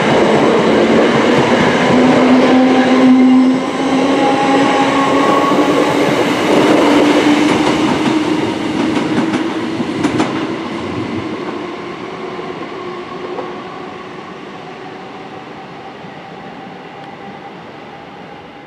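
Class 321 electric multiple unit running past and away, its traction motors whining with a tone that rises in pitch while the wheels clack over rail joints and points. The sound fades steadily over the second half as the train draws away.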